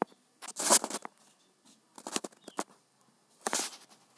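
Three short rustling bursts with a few sharp clicks between them: handling noise on a phone's microphone while the phone is being used.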